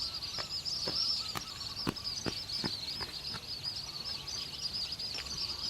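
Steady high-pitched chirring of jungle wildlife, with a run of about eight sharp knocks, roughly two a second, through the first three and a half seconds.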